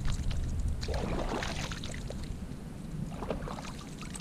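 Water lapping and splashing against a plastic fishing kayak's hull, with scattered light knocks and clicks.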